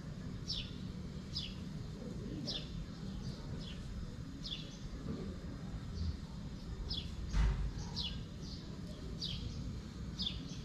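A small bird chirping over and over, short high chirps that fall in pitch, roughly one a second, over a steady low background rumble. One thump about seven seconds in.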